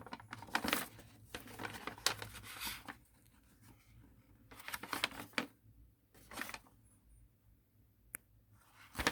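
A sheet of origami paper being handled and folded by hand: intermittent rustles and crinkles of the paper as it is bent and creased. They come thickly for the first few seconds, then in scattered bursts with quiet gaps between, plus one sharp tick near the end.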